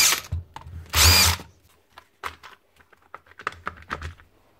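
Cordless drill-driver unscrewing the handle screws of a rotary hammer: a short run of the motor whine ending just after the start, and a second short run about a second in. Then light scattered clicks and knocks of the plastic handle being worked apart by hand.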